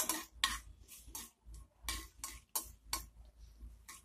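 Steel spoon stirring chana dal in shallow oil in a nonstick kadai, scraping and clinking against the pan in repeated short strokes, about two or three a second.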